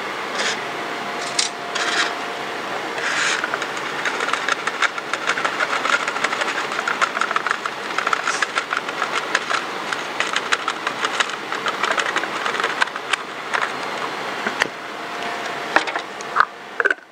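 Metal spatula scraping and tapping a flexible plastic weighing dish as powder is worked from it into a glass bottle's neck: a dense run of small scrapes and ticks, with a few sharper clicks near the end.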